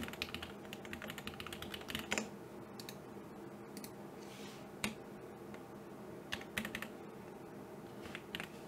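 Computer keyboard typing, faint: a quick run of keystrokes for about the first two seconds, then a few scattered single key presses.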